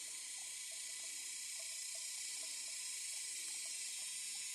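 Steady, even high-pitched hiss of outdoor ambience, with faint soft ticks repeating underneath.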